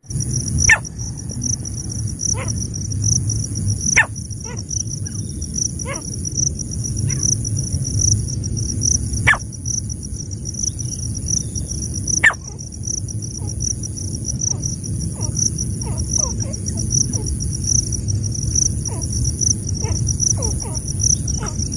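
Grey francolins giving short, sharp, falling call notes every second or two, becoming a quicker run of softer notes in the last third. A steady pulsing insect drone and a low rumble run underneath.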